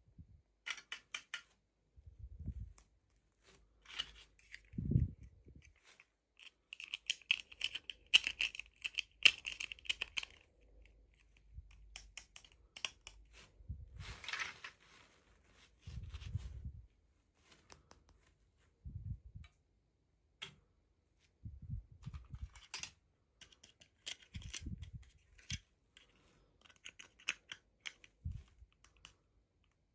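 Hands opening toy doll packaging: a scattered run of small clicks and taps with rustling and tearing of packaging, a longer scratchy stretch about seven to ten seconds in, and soft low bumps as pieces are handled.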